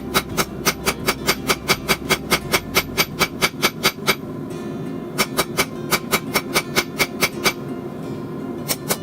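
Hand hammer striking a hot railroad spike on an anvil in fast, even blows, about five a second, each with a bright metallic ring. The blows stop for about a second just after the midpoint, run again for a couple of seconds and start once more near the end.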